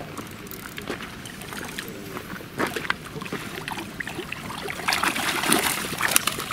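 Hooked trout splashing and thrashing at the water's surface as it is drawn to the landing net, louder over the last second or two.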